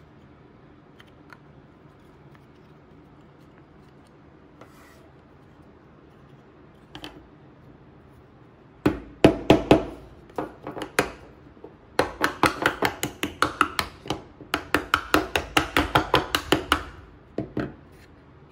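Rubber mallet tapping laser-cut MDF pieces together, seating their tab-and-slot joints. About nine seconds in, after quiet handling of the parts, come two runs of sharp light knocks at about four a second, with one more knock near the end.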